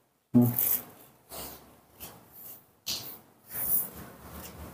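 Handling noise: a series of short rustles, scuffs and rubs, about half a dozen over a few seconds, with the loudest just after the start.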